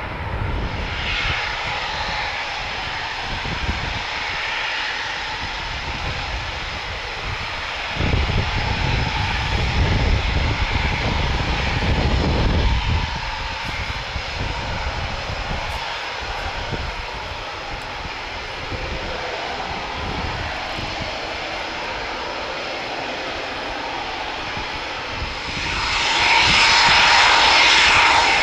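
Eurofighter Typhoon jets taxiing, their twin EJ200 turbofans running at taxi power with a steady high whine over a rushing hiss. A deep rumble swells for several seconds about a third of the way in, and the hiss grows louder near the end as a jet comes close.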